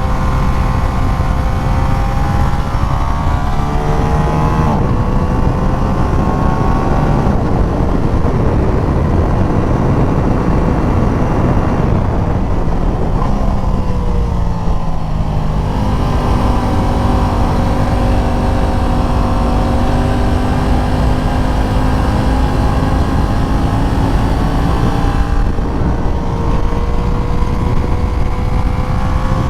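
Aprilia RS660 parallel-twin engine pulling a motorcycle uphill, its pitch rising and dropping several times with gear changes and throttle, with a long, slowly rising pull in the second half. A steady rush of wind noise runs underneath.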